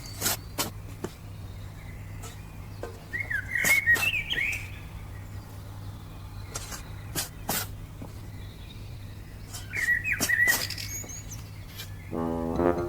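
Bird chirping in two short bursts of twittering, with a scattering of sharp clicks and a steady low hum underneath.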